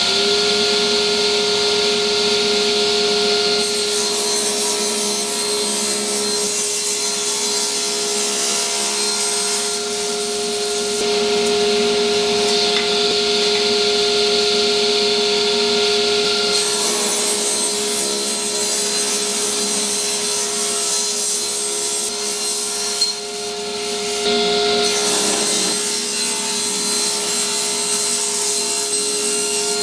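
A power tool running steadily with a constant whine while it works wood. The hiss of the cut swells and eases in long stretches as the piece is worked.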